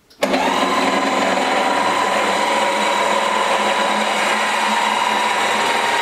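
PowerMate L-1 stair-climbing hand truck's electric lift motor driving its screw drive, raising the lift carriage up the mast. A steady whine that starts abruptly just after the beginning.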